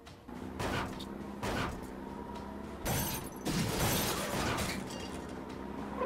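Cartoon crash sound effects: a series of smashing impacts as vehicles are rammed, with a burst of shattering about three seconds in, over a steady low hum.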